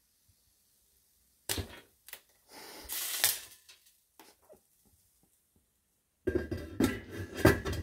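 Stainless-steel electric skillet lid knocking and scraping as it is handled, lifted off and set back onto the pan: one sharp knock, a brief scrape, then a cluster of clattering knocks near the end as the lid goes back on.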